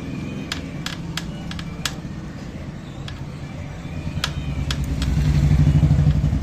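A vehicle engine running with a steady low rumble that swells louder about five seconds in and then eases, with a scatter of sharp clicks.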